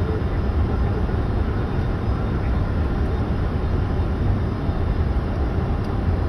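Steady low rumble and rush of cockpit noise inside a Boeing 747's flight deck on final approach: airflow and engine noise.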